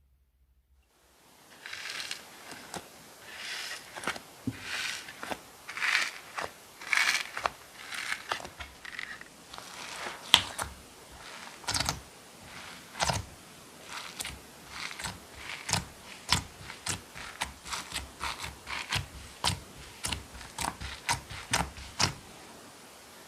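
Glitter slime being squished and poked by hand, starting about a second in: soft wet squelches at first, then a quick irregular run of sharp pops and clicks from air pockets bursting, about one or two a second.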